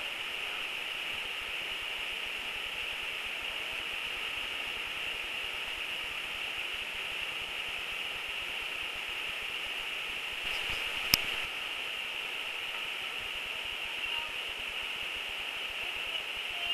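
Steady rushing of a waterfall pouring over rock ledges, with one sharp click about eleven seconds in.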